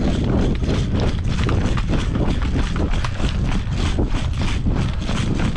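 A person running over dry leaf litter and twigs, footsteps crunching in a quick, steady rhythm. Heavy low rumble from movement buffeting the microphone.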